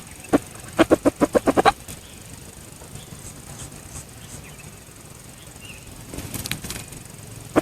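A red junglefowl cock beating its wings: two separate beats, then a quick run of about eight wingbeats lasting about a second. A brief rustle comes near the end.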